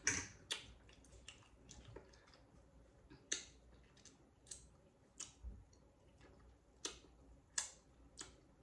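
Close-miked mouth sounds of eating nachos: irregular wet clicks and smacks while chewing, about one or two a second.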